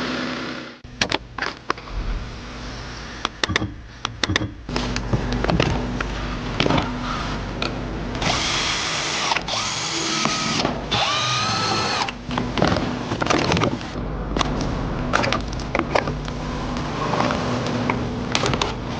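Workshop tool sounds: scattered clicks and knocks of hand tools, with three short bursts of a power tool near the middle, the last with a whine that rises and falls. A steady low hum runs underneath.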